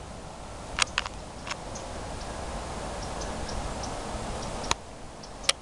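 A handful of sharp, irregular clicks, five in all, two close together about a second in and one near the end, over a steady low hiss.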